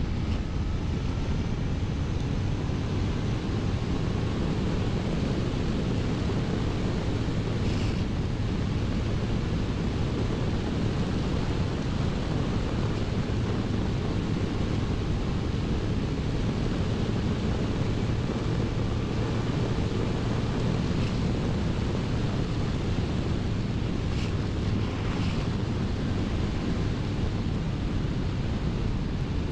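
Wind rushing over the microphone, steady and unbroken, over the low drone of a Honda CBR1100XX Blackbird's inline-four engine cruising at an even speed.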